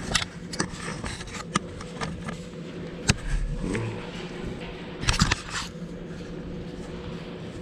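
Scattered sharp knocks and clicks, with a louder cluster about five seconds in, and some scraping, as a replacement fan motor is handled and fitted into a window-type air conditioner. A steady low hum runs underneath.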